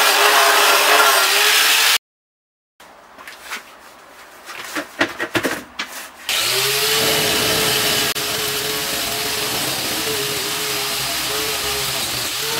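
Electric power tool fitted with a wire brush running against a used steel wheel rim, stripping rust and old paint, with a steady motor hum under the scratching. It stops about two seconds in, a few knocks and clanks follow, and it starts up again about six seconds in.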